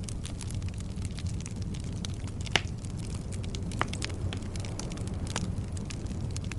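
Wood fire crackling over a steady low rumble, with frequent small pops and two louder snaps, one about two and a half seconds in and one near the four-second mark.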